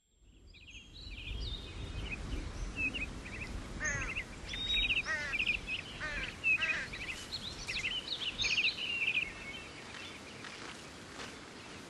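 Several birds chirping and calling in quick trills over a low, steady outdoor rumble, fading in from silence at the start.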